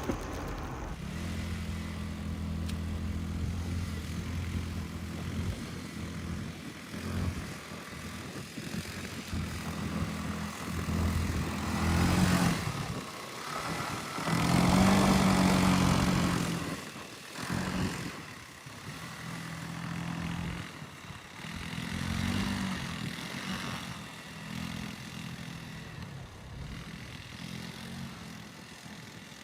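A motor vehicle's engine running with a steady low drone, swelling louder twice about halfway through.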